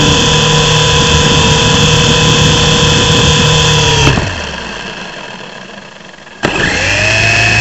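Mini RC helicopter's electric rotor motors whining steadily, heard up close from its onboard camera. About four seconds in there is a knock as it comes down on the floor, and the motors cut out and wind down; a couple of seconds later they spin up again with a rising whine.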